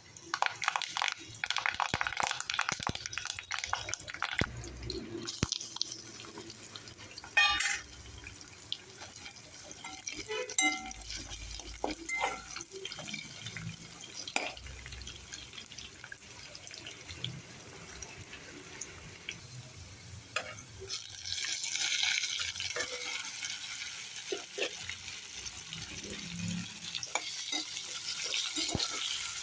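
Kitchen work at a sink: water from a tap splashing and dripping, with scattered knocks and clinks of vegetables and utensils being handled. About two-thirds of the way through, a steadier hiss of running water sets in.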